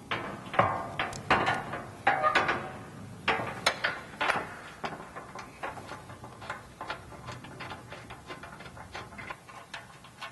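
Fuel tank skid plate clanking and scraping against the Jeep's underbody as it is pushed up and slipped into place between the belly pan and crossmember. A run of loud metal clanks comes in the first few seconds, followed by lighter knocks and taps.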